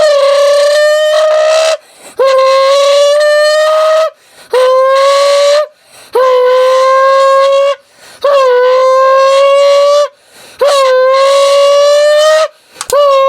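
Imitation of a Lamborghini engine made with a metal soda can: a run of loud, pitched, horn-like blasts, each about one and a half to two seconds long, scooping up in pitch at the start and then holding steady. There are six blasts and a seventh starting near the end, with short breaks between them.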